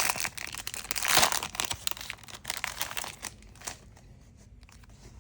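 Foil wrapper of a Topps baseball card pack being torn open and crinkled, loudest about a second in and dying away after about three and a half seconds.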